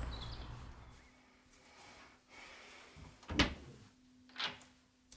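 Wooden bathroom wall-cabinet door being opened: a sharp knock about three and a half seconds in, then a weaker one a second later, in a quiet room. Outdoor background noise fades out over the first second.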